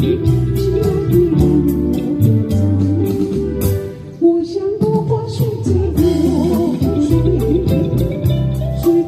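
A band playing a pop song: guitar and bass over a steady beat of high ticks, with a wavering melody line on top. The music dips briefly about four seconds in.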